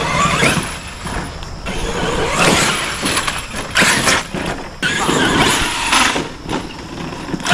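Arrma Outcast 8S RC stunt truck driven in several bursts of throttle across grass and dirt, its electric brushless motor whining up and down in pitch as the tyres dig into the ground.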